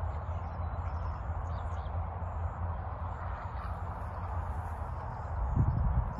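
Steady low rumble of distant road traffic, with faint bird chirps scattered over it. The low rumble swells louder briefly near the end.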